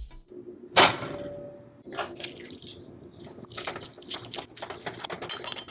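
Kitchen handling noises: one sharp knock about a second in, then scattered clicks and scrapes as a hand twists the lid of a small container.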